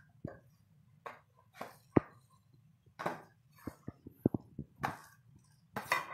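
Metal slotted spoon scraping and knocking on a steel tray as soaked rice is pushed off it into a pot of boiling water, in short irregular scrapes and clanks. The sharpest knock comes about two seconds in, a quick run of clanks about four seconds in, and a longer, louder scrape near the end.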